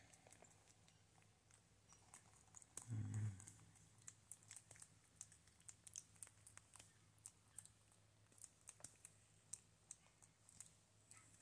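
Faint, irregular clicks and crackles as a Java macaque grooms a person's hair close up. A single low thump comes about three seconds in.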